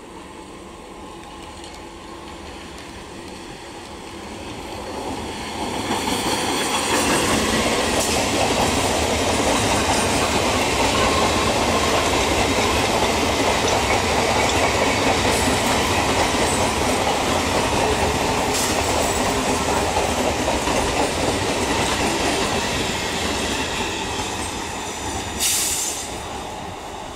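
Electric multiple unit local train approaching and running past, its noise building over the first several seconds into a loud steady rush of wheels on rail with clickety-clack, then easing off near the end. A brief sharp high-pitched burst stands out shortly before the end.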